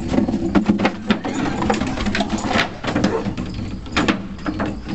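A Bernese Mountain Dog's claws and paws scrabbling on wooden deck boards as it plays, making rapid, irregular clicks and knocks.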